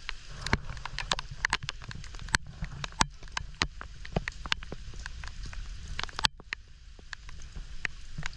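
Raindrops tapping irregularly on the camera, many sharp ticks a second, over a low rumble of wind on the microphone and a light hiss of rain on the water.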